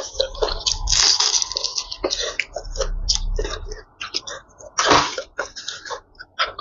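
Close-miked eating sounds: chewing and smacking on a mouthful of spicy instant noodles and fried chicken, with sharp breaths through the open mouth and one loud burst about five seconds in.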